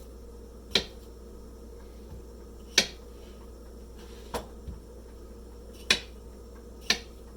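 Kitchen knife chopping peeled potato into chunks on a cutting board: five sharp knocks at uneven intervals, a second or two apart.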